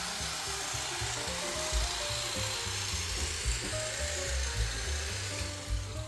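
Background music with a slow melody over a steady hiss of a hedge trimmer cutting bushes.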